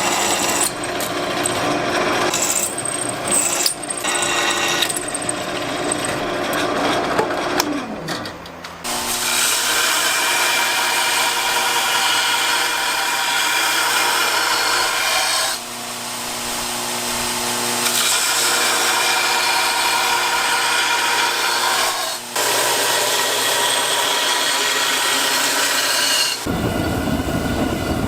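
A power tool running in a knife-making shop, working steel or wood with a steady hissing grind and two short breaks. Its pitch falls away about 8 seconds in as it spins down, and near the end a deeper, heavier rumble takes over.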